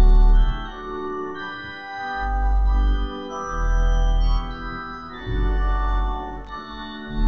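Organ playing slow, sustained chords, with a deep bass note swelling in about every two seconds.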